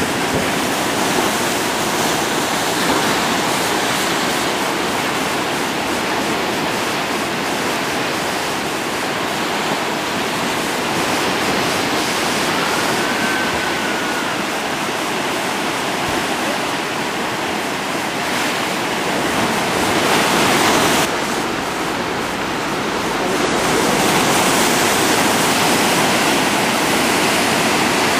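Heavy surf breaking over black lava rocks: a steady rushing wash of waves, swelling louder about two-thirds of the way through and again near the end.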